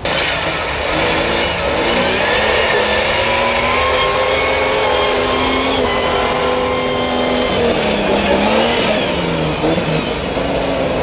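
Jeep Cherokee engine revving up and down under load as the Jeep works through deep snow, with a steady rush of noise beneath it.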